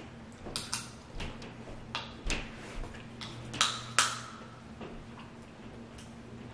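Eating sounds of crab legs being broken and picked by hand: about ten irregular sharp cracks and snaps of shell, the two loudest close together about three and a half seconds in, over a faint steady hum.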